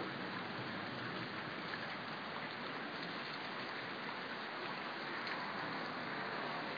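Heavy thunderstorm rain falling steadily, an even hiss of downpour without pauses.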